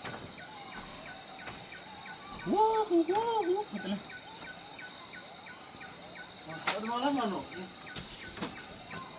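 Insect chorus, crickets, trilling steadily at a high pitch. Two short bursts of lower, rising-and-falling calls break in about a third of the way through and again near the three-quarter mark.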